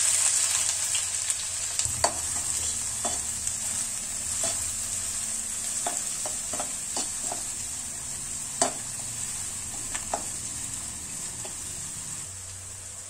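Chopped onion sizzling in hot butter in a non-stick kadai, loudest as it goes in and then easing. A perforated spoon stirs it, scraping and tapping against the pan now and then.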